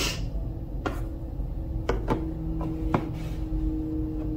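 A few light clicks and taps from handling a plastic jug of white paint, over a steady low hum and rumble.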